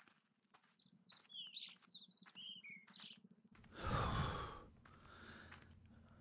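A small bird chirps a quick run of short notes, then about three and a half seconds in a man lets out a heavy sigh lasting over a second.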